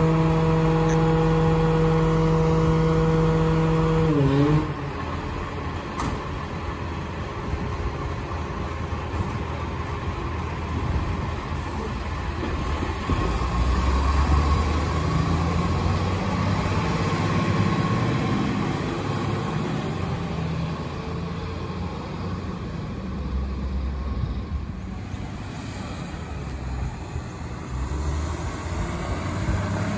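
Rear-loader garbage truck running its compactor, the diesel held at raised revs with a steady hydraulic whine that drops away about four seconds in. After that the truck's diesel rumbles lower and rougher, rising and falling, against road traffic.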